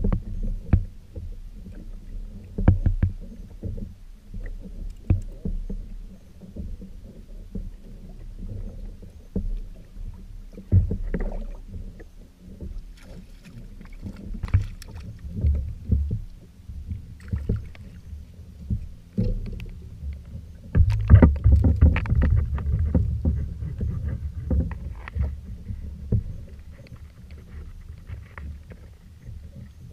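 Water lapping against a fishing kayak's hull under a low rumble, with scattered knocks and bumps. A run of louder thumps comes about 21 seconds in.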